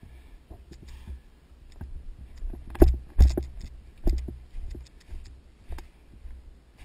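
Footsteps and gear knocks of a player on the move, with two loud thumps close together about three seconds in, then steps at a walking pace of about two a second.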